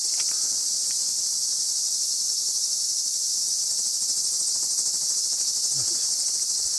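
Dense, steady, high-pitched insect chorus, a continuous shrill buzz from insects in the orchard trees.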